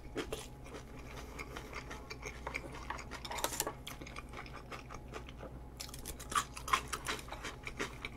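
Eating sounds close to the microphone: cutlery clicking against a dish, with chewing. The clicks are scattered and come in short flurries about three and a half seconds in and again around six to seven seconds in.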